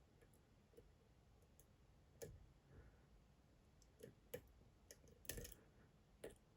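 A lock pick working the pins inside a Dom IX Twinstar lock cylinder, making several faint, irregular clicks.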